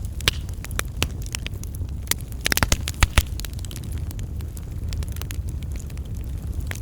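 Wood fire crackling and popping in a fireplace over a steady low rumble of the flames, with a quick flurry of louder pops about two and a half seconds in.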